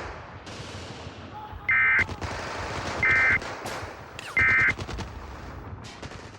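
Battle sound effect of continuous gunfire with scattered sharp shots. Over it, three short, loud, identical warbling data bursts about a second and a half apart: the EAS end-of-message (SAME) tones that close the alert.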